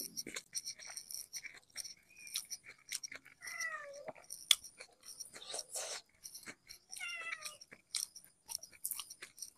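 A domestic cat meowing twice, each call rising then falling, as it begs for food, over close chewing and lip-smacking of someone eating by hand.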